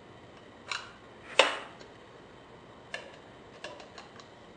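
Sharp metal clicks and clinks from a pump oil can and a piston with its connecting rod being handled as the piston is oiled for installation. The loudest clink, with a short ring, comes about a second and a half in, followed by several lighter ticks near the end.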